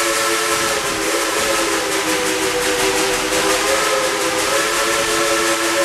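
Narrow-gauge steam train heard from an open coach while moving: several steady high tones sound together without a break, their pitch wavering slightly about a second in and again near four seconds, over a constant hiss.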